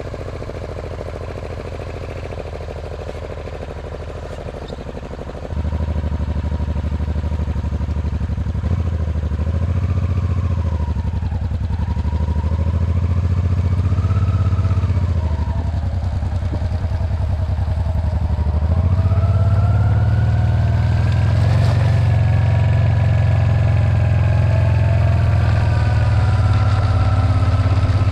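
Honda Transalp XL700V's V-twin engine idling, then pulling away about five seconds in and running under load along a dirt road, its pitch rising and falling as it speeds up. Heard close up from low beside the engine.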